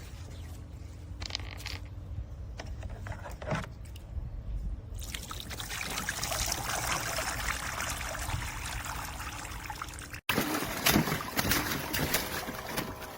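Water trickling and splashing in a children's plastic water table. It rises into a steady trickle about five seconds in and turns louder and more splashy after a brief cut-out near the end.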